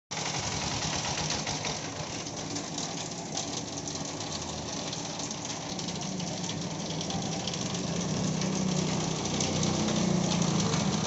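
Heavy rain falling, a dense pattering hiss, with an engine running underneath that grows louder in the second half.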